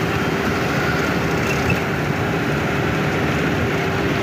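A bus driving in traffic: a steady drone of engine and road noise, heard from inside the bus.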